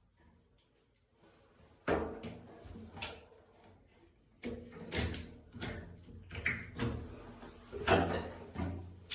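Irregular knocks, thuds and clatter of objects being handled and bumped, starting about two seconds in, the loudest near the end.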